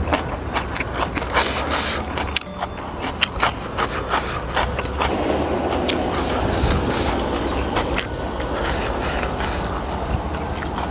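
Chewing, and grilled honey chicken being torn apart by hand, making many short crackling clicks over a steady low rumble.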